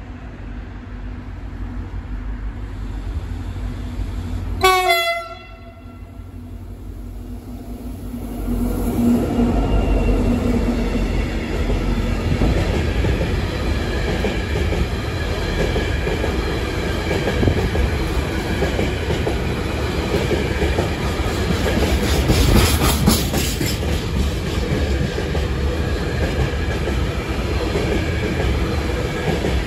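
A train horn sounds one short blast about five seconds in. From about eight seconds in, a freight train of covered hopper wagons rolls past close by: a loud, steady rumble with the clatter of wheels on the rails, and a denser run of wheel knocks about two-thirds of the way through.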